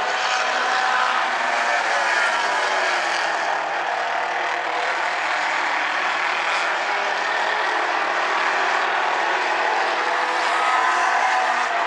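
A pack of compact stock cars racing on an oval, several engines running hard at once. Their pitches overlap in a steady, unbroken sound that rises and falls a little as the cars pass.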